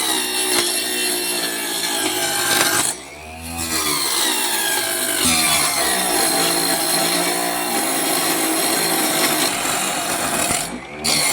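Homemade table saw driven by a 775 DC motor cutting wood, the motor whine sagging and recovering in pitch as the blade is loaded, with a brief lull about three seconds in.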